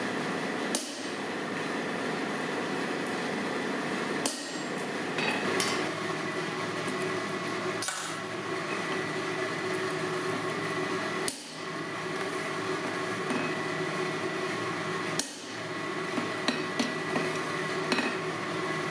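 A hand hammer striking an H13 hammer-eye punch held in tongs, driving it into a hot steel block on the anvil. There are about six heavy blows a few seconds apart, then a few lighter taps near the end, over a steady background noise.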